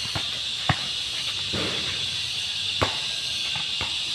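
A basketball bouncing on a hard outdoor court: a few separate bounces, the two loudest about two seconds apart. Behind them is a steady high hiss of insects.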